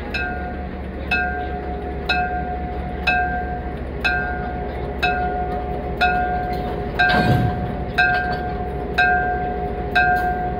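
Railway turntable warning bell ringing steadily about once a second, a bright ding that decays after each strike, over a steady low hum. A brief deeper rumble about seven seconds in.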